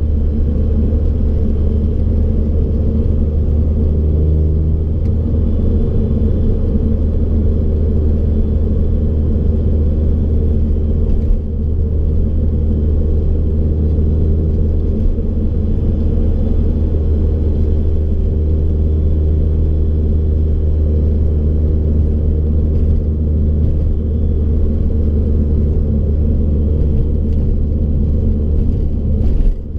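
BMW E30 driving at a steady pace: a continuous low engine hum and road rumble.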